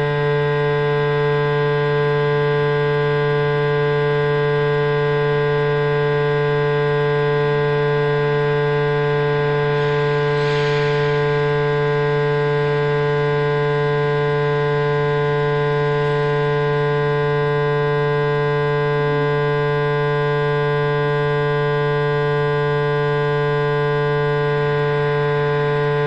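Loud, unchanging electronic drone: a low hum with a tall stack of steady overtones, the sound of a microphone-and-box sound installation.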